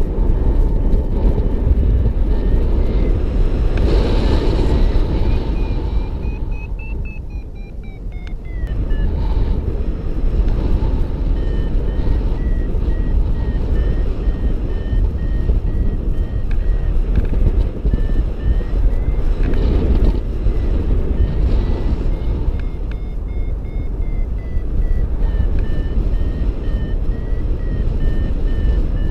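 Wind rushing over the microphone in flight, with a paragliding variometer beeping steadily at a high pitch underneath. The beeps rise in pitch about a quarter of the way in, then fall and settle, as the climb strengthens and fades.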